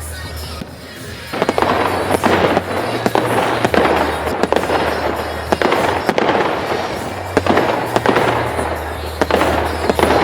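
Fireworks display going off: a rapid run of bangs and crackling that starts about a second in, with music and its steady bass playing underneath.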